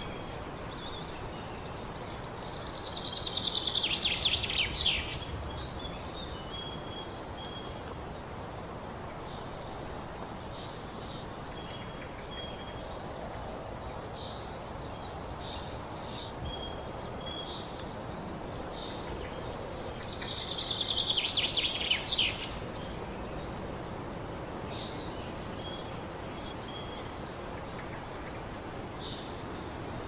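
Wild songbirds in woodland: two loud, rapid song phrases about two and a half seconds each, one early and one about two-thirds of the way through, with short high notes repeated between them over a steady outdoor hiss.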